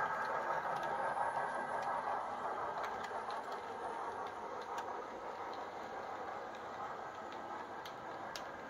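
H0-scale model train of double-deck coaches rolling steadily along the track, with a few faint clicks over the rails. The sound slowly fades as the train runs into the tunnel.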